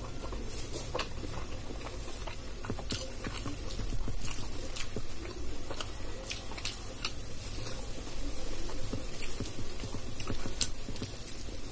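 Close-up eating sounds: fingers squishing and mixing rice and dal on a steel plate, with chewing, as many small irregular wet clicks.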